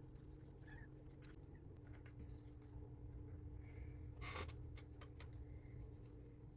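Faint clicks and light scratching from small kit pieces being handled and fitted together, with a short cluster of clicks about four seconds in, over a low steady room hum.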